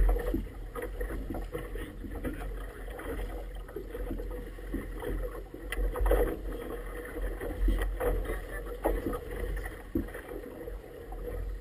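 Wind buffeting a small action camera's microphone in a deep uneven rumble, with choppy water splashing and slapping against an inflatable boat's rubber tube in short irregular knocks.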